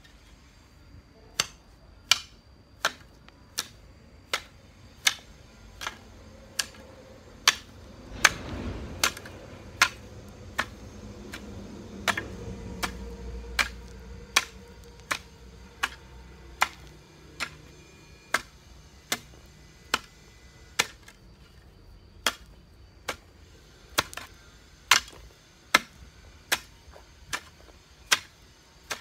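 Steady series of sharp, short knocks, about three every two seconds, as a long bamboo pole strikes the ground in a garden; a faint low rumble rises under them for a few seconds in the middle.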